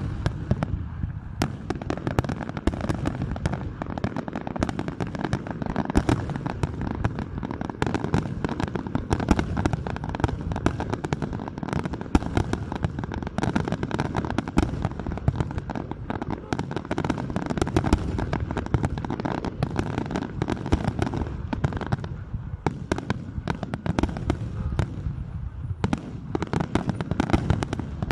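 Large fireworks display: a dense, continuous barrage of bangs and crackling shell bursts, many going off every second.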